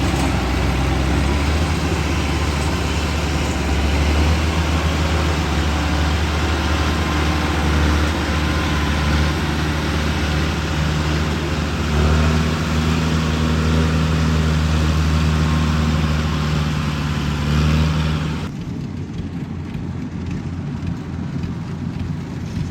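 Yanmar 850 combine harvester running while cutting rice: a steady, loud diesel engine drone with the machine's mechanical clatter over it. About eighteen seconds in, the sound abruptly turns duller and a little quieter.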